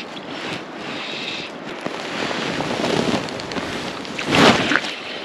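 Steady rush of flowing river water with wind buffeting the microphone. About four and a half seconds in there is a brief, louder swish as fly line is pulled in by hand.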